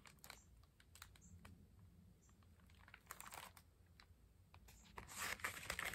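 Near silence with faint clicks and taps of hands holding a hardcover picture book, then a short rustle of paper about five seconds in as the page is turned.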